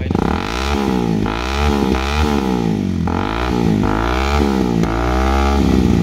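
2011 Honda CBR250R's single-cylinder engine through a Yoshimura R77 carbon full-system exhaust, revved in a series of quick throttle blips on the stand, the pitch climbing and falling back each time. It settles to a steady idle near the end.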